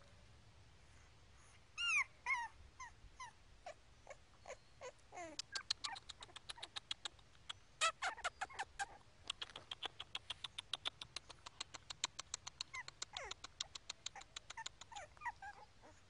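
English bulldog puppy whimpering in high, squeaky cries: two sharp cries about two seconds in, then a long run of quick short squeaks, several a second, broken by a few longer wavering whines.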